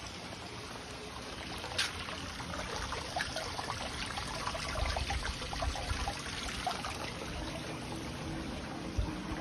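Running water trickling and splashing steadily, with many small splashes crackling through it.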